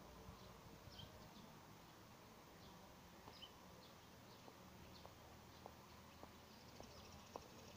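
Near silence: faint open-air ambience with scattered short, high bird chirps and a few faint ticks.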